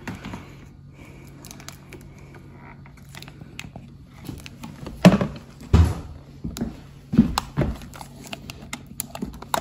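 Small clicks, taps and scrapes of a thin metal tool and pliers working a white plastic flipper-assembly piece out of its metal bracket on a Samsung refrigerator door, with a few sharper knocks about halfway through and more near the end. A faint steady hum runs underneath.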